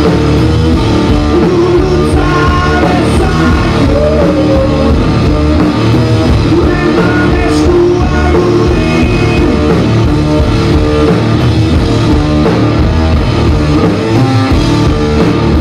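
Loud rock music from a two-piece band of electric guitar and drum kit playing together.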